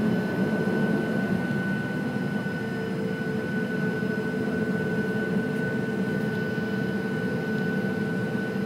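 An airliner's engines running at taxi power, heard from inside the cabin. There is a steady hum with a steady high whine running through it.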